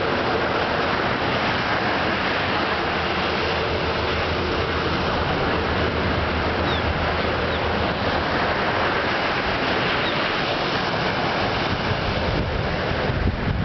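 Surf on an open beach: a steady wash of breaking waves, with wind on the microphone adding a low rumble near the end.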